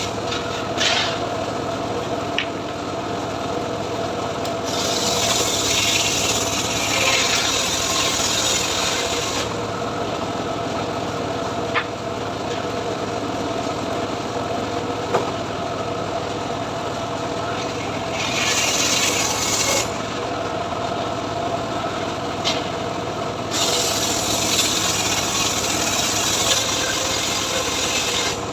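Homemade engine-driven sawmill running with a steady hum while its blade saws mahogany. The cut shows as stretches of loud, hissing rasp: a long one in the first third, a short one about two-thirds through, and another near the end, with a few sharp clicks.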